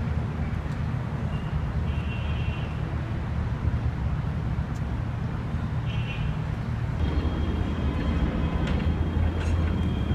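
Steady low rumble of city traffic, with a couple of faint, brief high-pitched tones.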